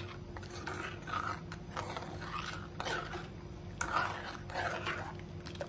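A spoon stirring besan sheera, gram flour in milk and sugar, in a pan, scraping round the pan in strokes roughly once a second over a steady low hum.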